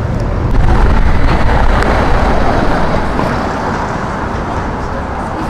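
Street traffic with a motor vehicle passing close, its engine rumble and tyre noise swelling about half a second in and easing off after about three seconds.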